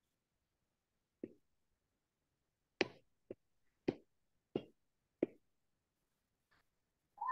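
About six sparse clicks of a computer keyboard and mouse, spaced half a second to a second and a half apart, as a word is typed. A short, louder pitched sound comes right at the end.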